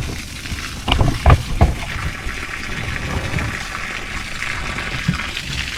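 A few sharp knocks about a second in, then a steady hiss of water pouring onto plants as they are watered.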